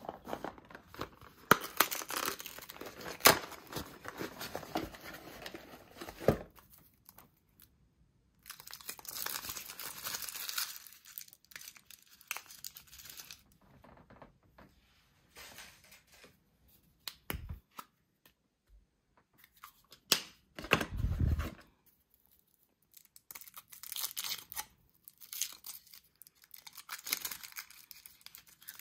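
Foil wrappers of Kinder Surprise chocolate eggs being torn and crinkled, in bursts of several seconds with short quiet pauses between, and a sharp click about three seconds in.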